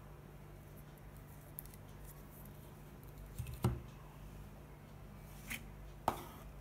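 Phone accessories and packaging handled by hand at a table: faint ticks and rustles, a soft knock about halfway through and two sharper clicks near the end, over a steady low hum.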